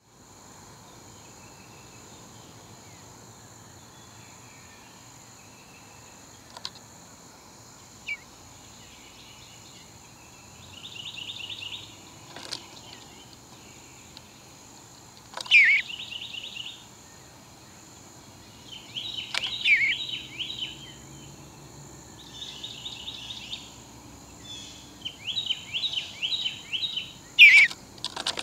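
Small songbirds calling in bursts of quick chattering notes, repeated every few seconds from about ten seconds in, a few with sharp falling notes, over a steady high background hiss.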